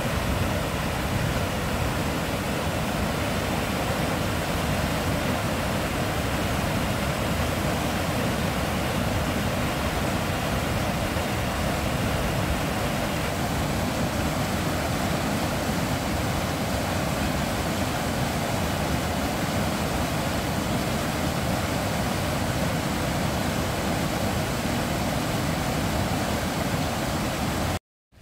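Rapids and a small waterfall on a rocky river in spate, the fast foaming water rushing steadily over the rocks. The sound cuts off suddenly near the end.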